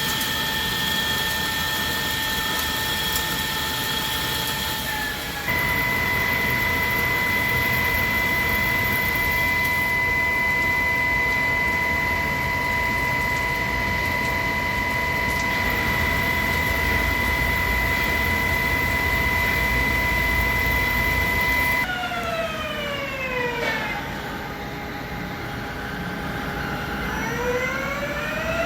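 Hankook Protec 7NA CNC lathe's spindle drive whining at a steady pitch over a noisy machining hiss. The pitch steps up about five seconds in, glides down steeply later on, holds lower, then climbs again near the end as the spindle speed changes.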